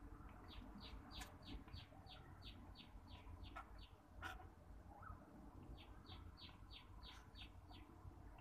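Faint run of quick, high chirps, each note sliding down, about five a second, in two bursts, with a few soft clicks in between.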